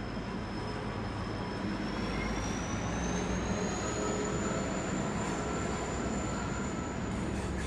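Train running past with a steady rumble and a thin, high-pitched squeal that rises in pitch about two seconds in and then holds steady.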